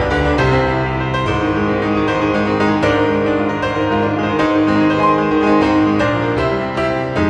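Piano music: a pianist playing a lively piece, many notes struck in quick succession over sustained chords.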